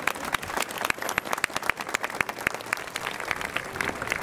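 A large crowd clapping hands in sustained applause: a dense, even patter of many claps.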